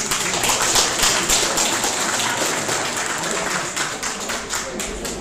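Audience applauding, a dense patter of many hands clapping that thins a little near the end.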